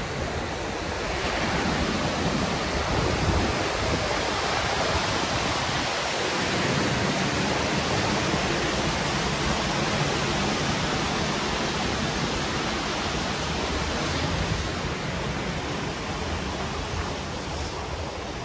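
Steady rushing of water spilling at a canal lock, an even hiss with no breaks.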